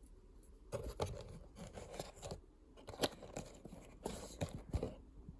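Faint, irregular rustling and scraping with scattered clicks, like objects or packaging being handled.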